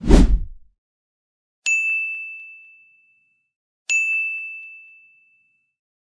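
Editing sound effects: a short low impact right at the start, then two bright bell-like dings about two seconds apart, each ringing out and fading over a second or so.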